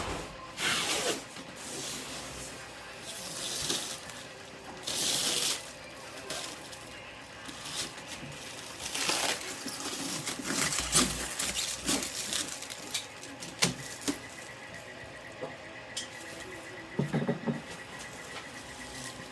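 Unboxing handling noises: irregular rustling and scraping of packaging foam and plastic, in short bursts, with a few sharp clicks and knocks.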